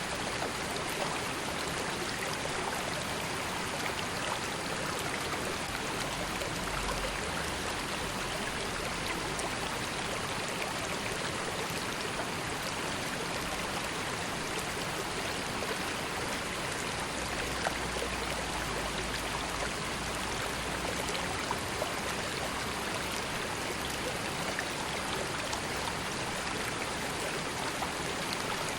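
Calm river flowing steadily: an even, continuous rush of water with small trickles and splashes.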